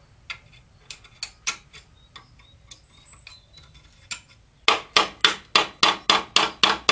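Metal striking metal on the steel of a wood pellet boiler's burning head, as it is knocked and cleaned: a few scattered sharp knocks, then a little under five seconds in a quick, even run of louder strikes, about three and a half a second.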